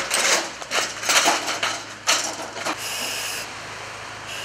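Compressed air hissing from a firefighter's self-contained breathing apparatus as the face mask is fitted. First comes a string of irregular, rough hisses, then two short, steadier hisses, one about three seconds in and one near the end.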